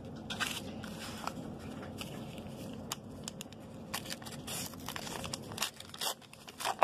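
Foil wrappers of 1990 Upper Deck baseball card packs crinkling and tearing as they are ripped open by hand, with irregular crackles and clicks throughout.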